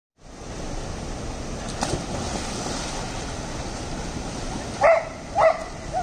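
Steady rush of flowing river water, then a golden retriever barks twice in quick succession near the end, with a fainter third bark just after.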